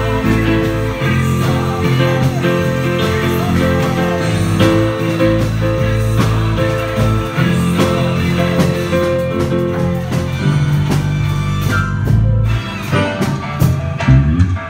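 A small live band playing together: held keyboard chords over an electric bass played through a Peavey bass cabinet, with a drum kit and cymbal hits standing out more near the end.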